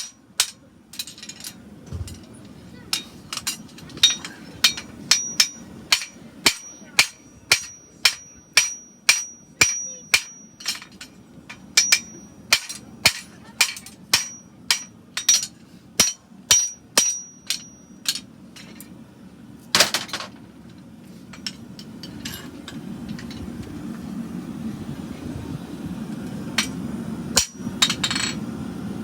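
Farrier's hammer striking a hot steel horseshoe bar on an anvil in a steady rhythm of about two blows a second, each blow ringing high. The hammering stops after about eighteen seconds; a steady low rumble then rises, with a few more blows near the end.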